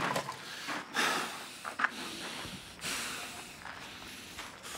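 A man breathing hard in distress, with sharp noisy breaths or sniffs coming about once a second.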